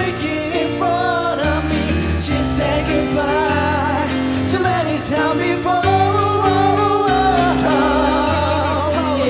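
Male voice singing a slow, held melody with vibrato over piano chords.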